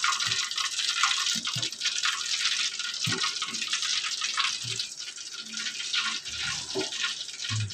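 Steady hiss of a pot of vegetable soup heating on a gas stove, with a ladle stirring the liquid in the aluminium pot and a few soft knocks.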